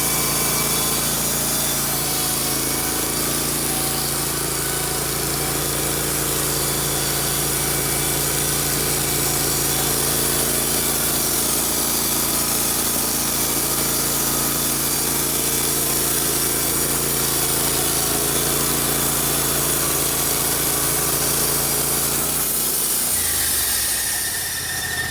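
Wood-Mizer LT15 Wide band sawmill running under load, its band blade sawing through a pine log, with the engine's steady tone and a hiss of the cut. Near the end the engine's pitch falls and it drops back toward idle as the cut ends.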